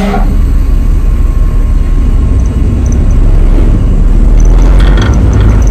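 Steady low rumble of a ship's engines and machinery, heard inside the wheelhouse.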